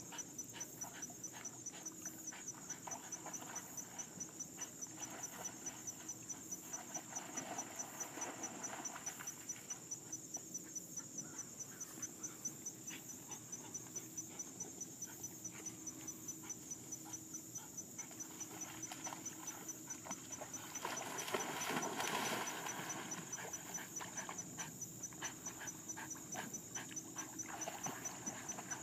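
Insects chirping in a steady, rapid, even pulse, over the quieter sounds of a German Wirehaired Pointer swimming through pond water. A louder stretch of noise comes about two-thirds of the way through.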